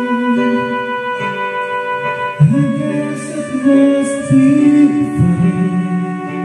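Karaoke backing music from a karaoke player, with steady held chords, and from about two seconds in a voice singing the on-screen lyrics over it in phrases.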